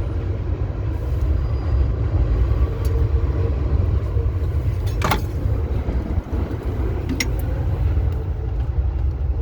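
Wind buffeting the microphone, a heavy low rumble that flutters continuously, with a sharp click about five seconds in and a lighter one about two seconds later.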